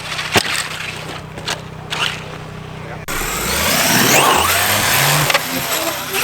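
Electric RC basher truck driving on dirt: a motor whine rising and falling with throttle over the noise of the tyres, with a few sharp knocks in the first half. It gets louder about three seconds in.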